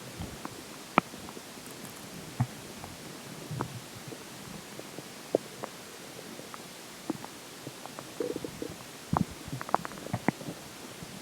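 Stomach gurgling after drinking water: scattered short pops and squeaks, with a busier run of gurgles from about eight to ten seconds in.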